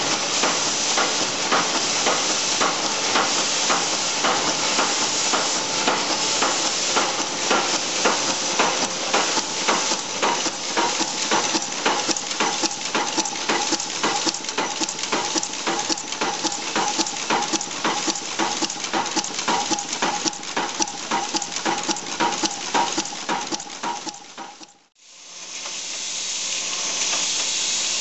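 Mechanical press forming brass rifle cases, cycling at a steady rhythm of about three strokes a second: a clatter of metal on metal over a steady hum. Near the end it cuts off abruptly and gives way to a smoother, steady rushing machine noise.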